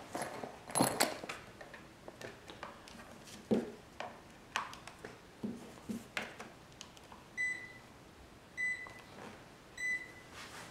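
A few clicks and knocks from handling test leads. From about seven seconds in, a Fieldpiece SC440 clamp meter beeps a short high tone about once every 1.2 seconds. This is its high-voltage warning beeper, sounding while the leads read about 116 V AC.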